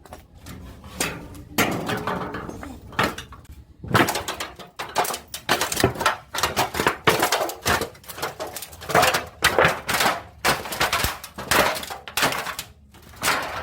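Irregular knocks, bangs and clattering of plastic and metal parts as a top-loading washing machine is handled and taken apart, roughly one or two hits a second.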